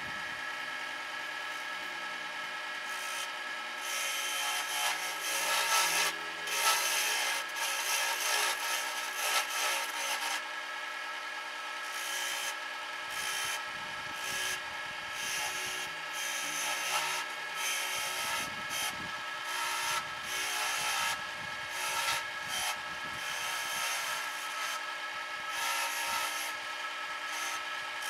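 Wood lathe running with a steady hum while a flat chisel held on the tool rest scrapes into the spinning wooden handle blank, cutting decorative grooves. The scraping starts a few seconds in and comes in uneven bouts.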